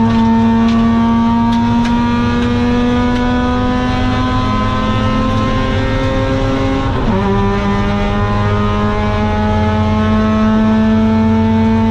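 Mazda RX-8's two-rotor 13B Renesis rotary engine, with a long-tube exhaust and Borla muffler, running at high revs and accelerating, its pitch climbing slowly. About seven seconds in an upshift drops the pitch sharply, and it then starts climbing again.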